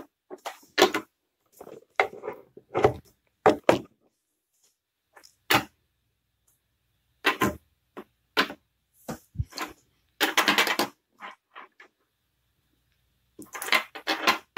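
HO scale Athearn Maxi-I well cars, small plastic models, clicking and tapping against each other and a wooden tabletop as they are handled and set down: irregular light clicks and knocks, with a brief scraping rustle about ten seconds in.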